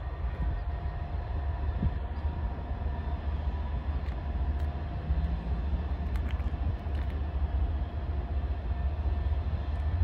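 Diesel locomotives of a Norfolk Southern freight train rumbling as the train approaches slowly, a steady low rumble with a faint steady whine above it.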